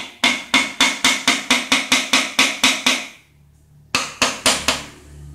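Hammer tapping around the rim of a D15 single-cylinder diesel's round crankcase cover plate, driving it home over the crankshaft: a fast run of ringing metallic taps, about five a second, a pause about three seconds in, then a few more taps.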